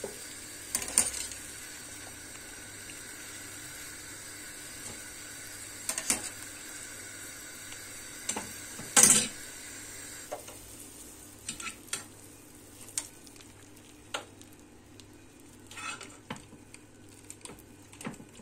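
Boiled chicken pieces sizzling in butter in a frying pan, with scattered metal clanks of a utensil against a steel pot, the loudest about nine seconds in. The sizzling drops away about ten seconds in, leaving lighter clinks.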